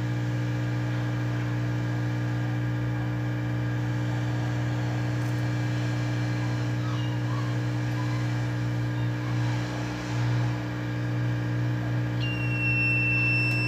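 Steady hum of a hot-air soldering station blowing on a radiator fan thermal switch. About twelve seconds in, a multimeter's continuity beeper starts a steady high beep and holds it: the heated switch has closed, as it would to switch on the radiator fan.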